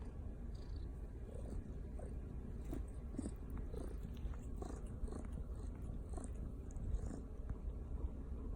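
A savannah kitten growling with a low, continuous rumble, with small clicks and scuffs scattered through it.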